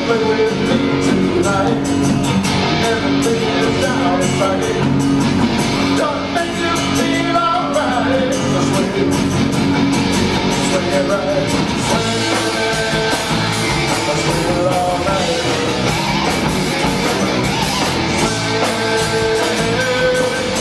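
Live rock band playing a song: a male lead vocal sung over acoustic and electric guitars and bass, with drums and cymbals keeping a steady beat.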